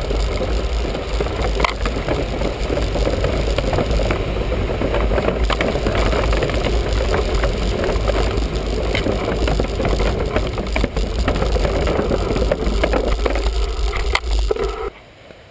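Heavy wind rumble on the microphone of a camera riding along on a moving mountain bike, with the bike's rattles and knocks over rough trail. The noise cuts off abruptly near the end.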